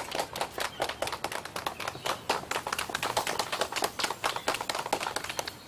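A small group of people applauding: many quick, uneven hand claps that die away near the end.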